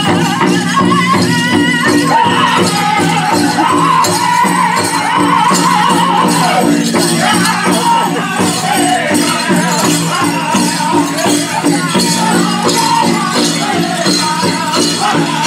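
Pow-wow drum group singing in high, wavering voices over a steady, even beat on the big drum, with the constant jingling and rattling of the dancers' regalia.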